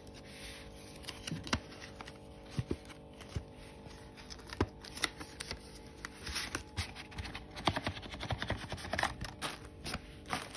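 Hands opening a small cardboard product box and handling a plastic bag: irregular clicks, taps and crinkles of card and plastic, busier in the second half, over a steady low hum.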